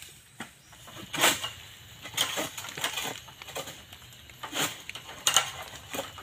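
Oil palm fronds being cut by a sickle on a long harvesting pole: about six sharp crunching cuts, irregularly spaced, the loudest about a second in and again near five seconds in.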